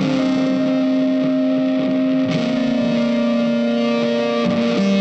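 Instrumental background music of long held notes that change pitch every second or two.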